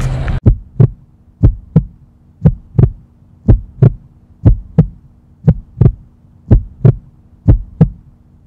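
Heartbeat sound effect: deep lub-dub double thumps, about one beat a second, over a faint steady hum. It begins just after the outdoor street sound cuts off suddenly.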